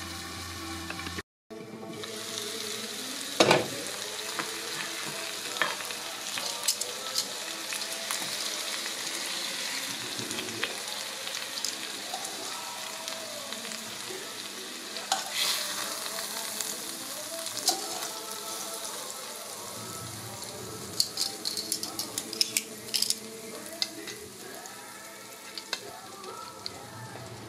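Chicken breasts sizzling in hot oil in a skillet, a steady frying hiss, with sharp clicks of metal tongs against the pan and plate as the pieces are lifted out. The sizzle grows quieter near the end.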